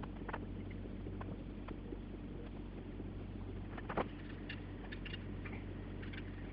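Small hardware parts of a graphics-card cooler being handled and fitted: scattered light clicks and taps, one louder tap about four seconds in, over a steady low hum.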